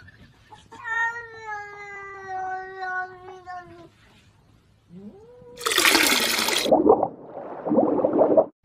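A cat yowling: one long drawn-out call lasting about three seconds, its pitch sagging slowly. Another rising call starts about five seconds in and is swamped by a loud rushing noise, and a second, duller rush comes near the end.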